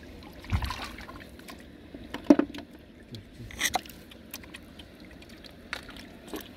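Hands sloshing and groping through shallow muddy water and soft mud while feeling for snails, with a few louder splashes.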